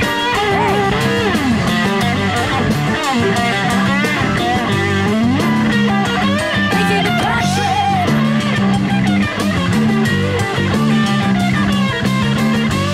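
Rock band playing, with a lead electric guitar line full of bent, sliding notes over bass and rhythm backing.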